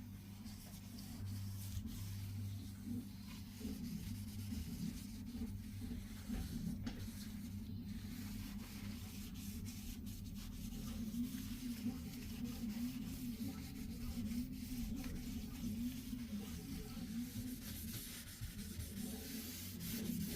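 Soft, steady rubbing against a surface, with a low hum underneath.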